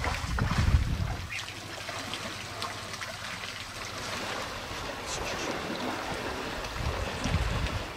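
Water trickling and splashing from elephants drinking at a waterhole, with a low wind rumble on the microphone in the first second or so.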